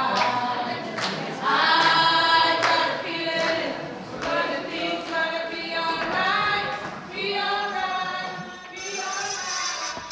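A choir singing, several voices together in phrases that swell and fall away.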